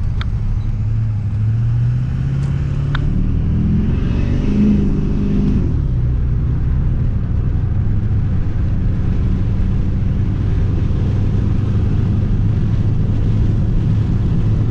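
A road vehicle's engine accelerating, rising in pitch for a few seconds, then settling into a steady drone while cruising, with road noise.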